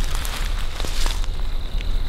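Footsteps crunching and rustling through dry fallen leaves on the forest floor, over a steady low rumble on the microphone.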